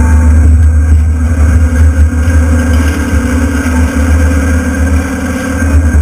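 Excavator's diesel engine running steadily under load, a loud, deep drone, as the machine works its arm and bucket against a building.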